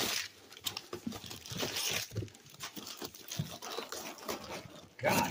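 Cardboard shipping box being handled and shifted, with scattered rustles, scrapes and light knocks of cardboard.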